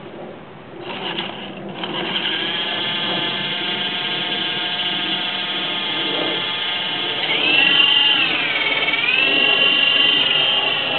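Modified Air Hogs Gryphon toy RC helicopter spinning up, its electric motor and rotors running with a steady high whine from about two seconds in. Around eight seconds in the pitch dips and climbs back.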